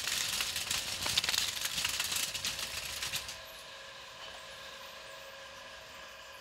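Glass sparkling-wine bottles clinking and rattling against each other as they are handled and taken from a rack. The dense run of clicks stops about three seconds in.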